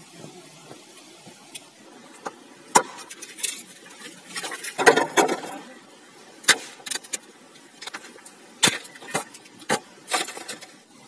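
Dry bamboo poles knocking and clattering as they are handled and shifted among river stones: irregular sharp knocks, with a denser rattle about four to five seconds in.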